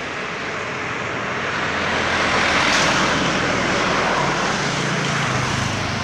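Rushing engine noise of something passing by, swelling to a peak about three seconds in and then slowly fading, with a low engine hum coming through near the middle.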